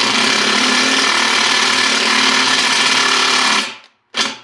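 Cordless impact driver hammering a combined drill-and-tap bit into a weld-filled bolt hole in a steel axle housing. It runs steadily for about four seconds, stops, then gives a brief second burst near the end. The weld is harder than the housing, and the bit snaps during this attempt.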